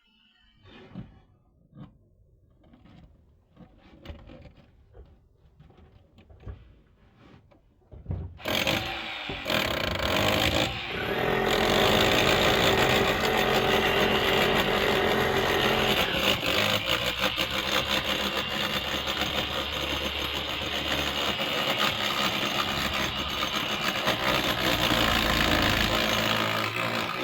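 Faint scattered knocks, then about eight seconds in a power tool starts up abruptly and runs loud and steady to the end.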